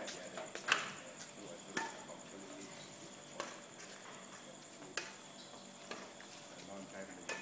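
Badminton rackets striking a shuttlecock in a slow rally: about six sharp hits spaced roughly a second to a second and a half apart, the loudest about a second in.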